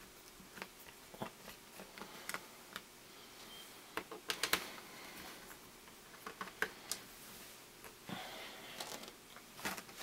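Faint, irregular clicks and ticks of a small Phillips screwdriver loosening screws in a laptop's plastic screen bezel, with the plastic case being handled; a quick cluster of clicks comes about four seconds in.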